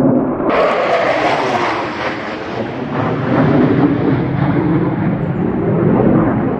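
F-15 Eagle's twin turbofan engines heard from the ground as the fighter flies overhead, played back slowed down: a steady, noisy rush of jet noise. About half a second in it suddenly turns brighter, then slowly dulls again.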